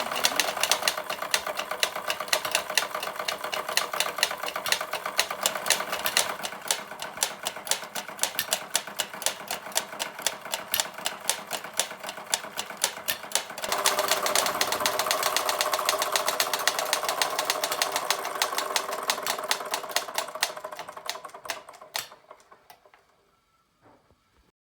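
Model steam engine (a Doll 346/5 horizontal engine) running, driving toy model accessories with a rapid, regular mechanical clicking and clatter. About halfway through, a louder steady rushing sound joins in. Near the end it all dies away, with a last click or two.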